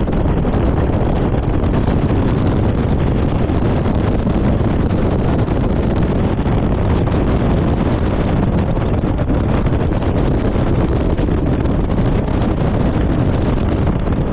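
Jet boat running at speed, its twin Chevy V8 engines driving Hamilton water jets, under wind blasting on the microphone. The noise is loud and steady throughout.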